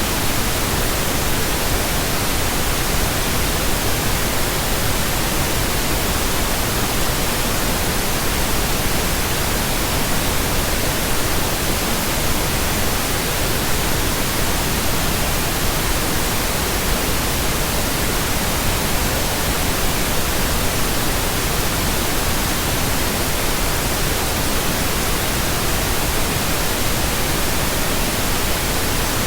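Steady synthetic pink noise: an even, unchanging hiss spread across the whole range, with no tones or breaks.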